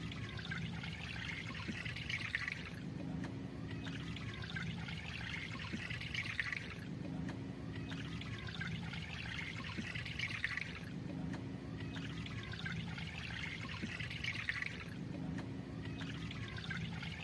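Faint trickling, pouring water that swells and fades in an even cycle about every four seconds, the same pattern repeating over and over like a looped track, over a steady low hum.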